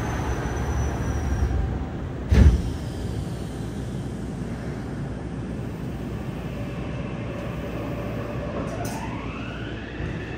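Subway car doors slamming shut with one loud knock about two seconds in, over the car's steady background hum. Near the end the train starts moving, and the whine of its Mitsubishi IGBT-VVVF inverter rises in pitch as it accelerates.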